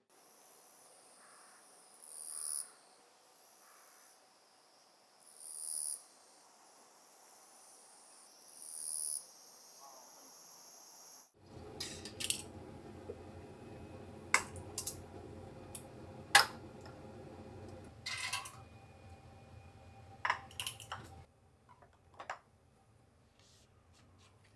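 A faint high hiss that swells three times, about three seconds apart. About halfway through it gives way to a steady low rumble from the gas stove under a steaming water-bath canning pot, with sharp clinks of glass canning jars and metal lids as the jars are lifted out. The rumble stops a few seconds before the end.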